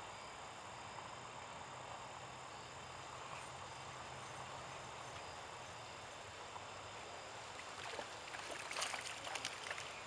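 Steady outdoor background noise, then, about eight seconds in, a hooked fish thrashing and splashing at the water's surface in a quick cluster of sharp splashes as it is reeled in to the bank.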